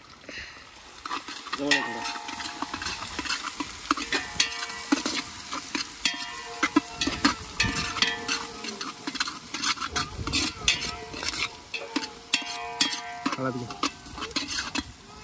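Onion-and-tomato masala being stirred and scraped around a pan as it fries: a fast run of clatters and scrapes over steady sizzling. It starts about one and a half seconds in and eases off near the end.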